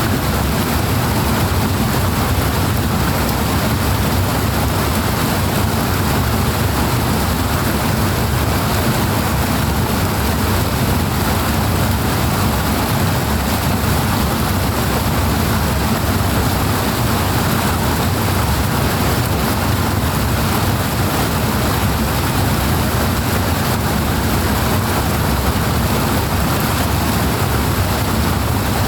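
Rushing water: a loud, steady flow of water, unchanging throughout, with a deep low rumble under the hiss.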